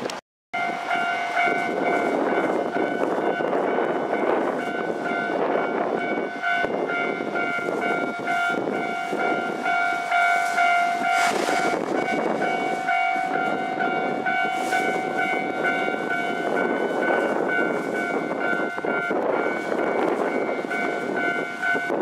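Keisei 3000 series electric train running slowly into the platform, its rolling noise with scattered wheel clicks, under a steady ringing tone that holds one pitch and fades out about three-quarters of the way through.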